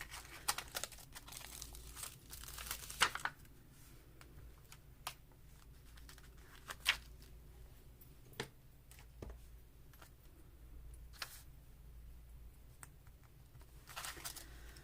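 Paper and small craft supplies being handled and sorted: intermittent rustling with scattered light clicks and taps, busiest in the first three seconds.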